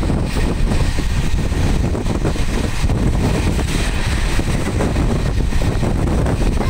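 Wind rushing in through the open window of a moving vehicle, with the vehicle's running noise: a loud, steady rush, heaviest at the low end.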